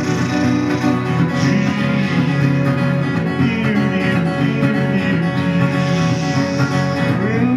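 Acoustic guitar played solo, an instrumental break between verses of a song.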